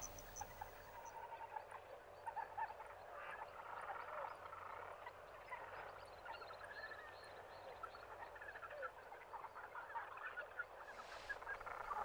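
Faint chorus of many small animal calls, short and repeated throughout, with a faint, evenly spaced high ticking above it.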